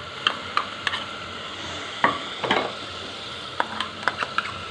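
Steel spoon clicking and scraping against a small bowl and the rim of a pressure cooker as ginger-garlic paste is scraped in, about ten separate taps, the loudest about two seconds in. Under it, onion paste sizzles softly in oil on low heat.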